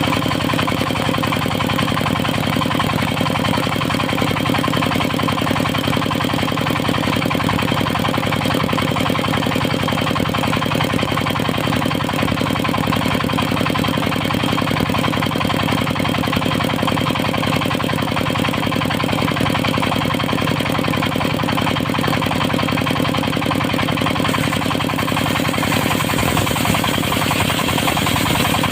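Diesel engine of a circular sawmill running steadily with a fast, even knocking beat, driving the saw.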